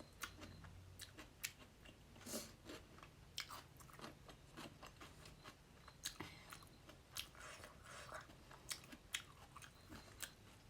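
A person chewing and eating close to the microphone: soft, irregular mouth clicks and smacks, a few every second.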